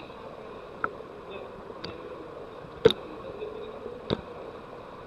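Indoor swimming pool ambience: a steady hum and hiss with four short, sharp clicks, the loudest about three seconds in.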